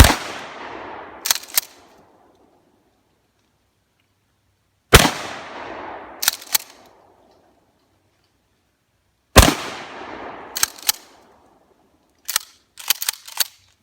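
Remington pump-action 12-gauge shotgun fired three times, about five and four and a half seconds apart, each blast trailing off with an echo. About a second and a half after each shot come two sharp clicks of the pump being worked, and a quick run of clicks comes near the end.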